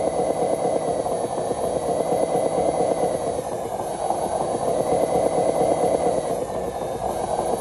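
Motor of a radio-controlled model truck running steadily as the truck crawls along, with a thin high whine that dips in pitch and recovers three times.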